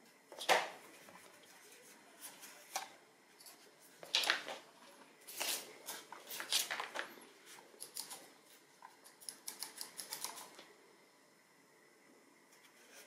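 Handling noise from a Logitech G403 gaming mouse and its braided cable being unwound and moved about on a tabletop: irregular rustles, light knocks and clicks, with a quick run of light ticks near the end.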